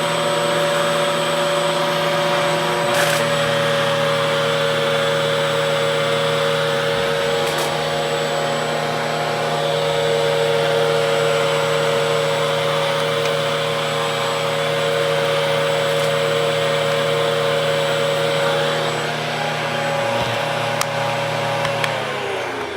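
Hoover vacuum cleaner motor running with a steady whine during a hose suction test, with a brief click about three seconds in. Near the end it is switched off and the whine falls in pitch as the motor winds down. The strong suction at the hose is taken by the owner as a sign of a clog in the filter or elsewhere in the hose.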